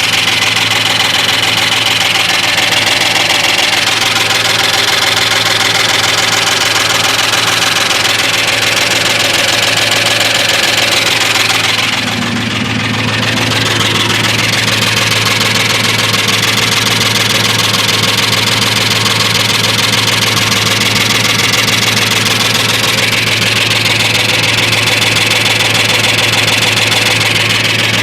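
1998 Ford F-150's 5.4-litre two-valve V8 idling, with a ticking from the passenger side of the engine. The cause is unknown: lifters, lash adjusters, spark plugs and coil packs have already been replaced, and only the exhaust and timing chain remain unchecked.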